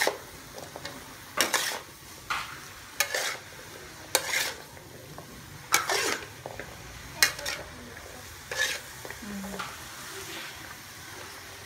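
Spatula scraping and turning beef and baby corn in a metal wok, in irregular strokes about once a second, over a steady sizzle of frying.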